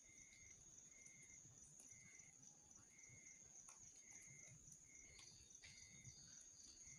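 Night insects calling faintly: a steady high trill, with a lower chirp pulsing about once a second and a second, higher pulsed call joining about five seconds in. A few faint sharp crackles from the campfire are heard among them.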